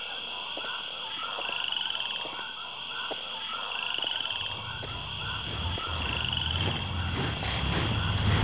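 Jungle ambience of frogs croaking in quick repeated calls over a high insect-like trill. About four seconds in, a low rumble comes in and grows louder.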